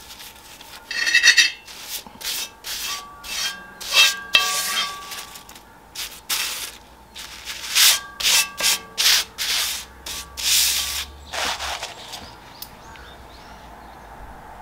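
A paper towel held in metal tongs rubbed in a dozen or so quick strokes across the seasoned surface of a cast-iron Joseon griddle, wiping it clean. The strokes stop a couple of seconds before the end.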